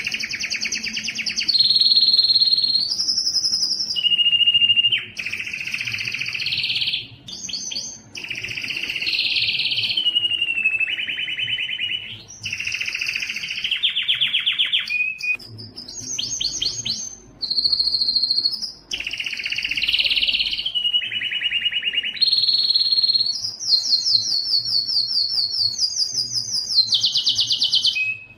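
Domestic canary singing continuously: a run of rapid trills and rolls, each held a second or two before switching to a new pitch, with brief pauses between phrases.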